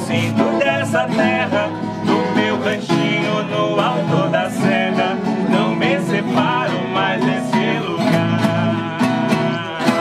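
Violas caipiras (Brazilian ten-string guitars) strummed and plucked together in a moda de viola, with a man's voice singing over them.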